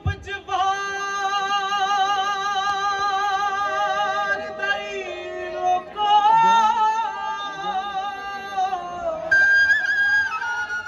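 Punjabi folk music: a melody of long held notes with a quick wavering vibrato, moving to new pitches a few times, with a downward slide before a higher note near the end.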